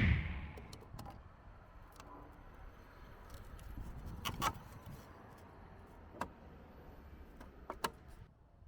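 Quiet background hiss with a few scattered short clicks and taps, the sharpest about four and a half seconds in and again near the end, after a loud whoosh dies away at the start.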